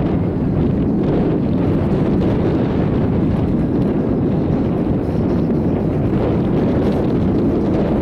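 Strong wind buffeting the microphone: a loud, steady low rumble with no letup.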